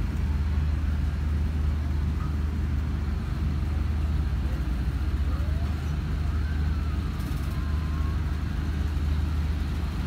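A steady low machine rumble, like an engine running, holding level without change.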